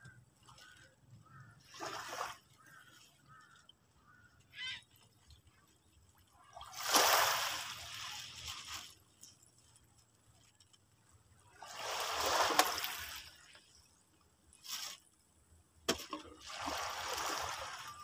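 Small waves washing and splashing against shoreline rocks, one every five seconds or so, each wash swelling and fading over one to two seconds.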